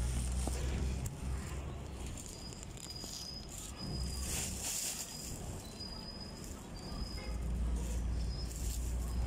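Hong Kong double-decker tram running along its street rails, heard from on board: a low rumble that eases in the middle and builds again near the end, with short high squeaks now and then.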